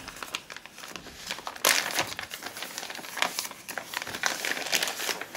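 Plastic packaging of a cross-stitch kit crinkling as it is handled, in irregular rustles, the loudest about a second and a half in.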